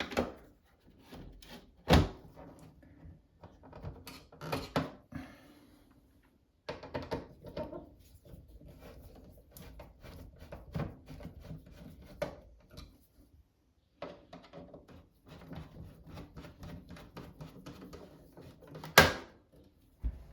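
Handling sounds of a cover being fitted back in place under a sink: scattered clicks, knocks and rubbing, with a sharp knock about two seconds in and a louder one near the end.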